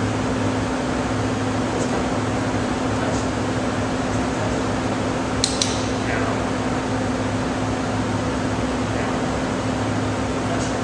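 Steady mechanical hum of a fan or air-handling unit, with a quick double click about halfway through and another at the very end.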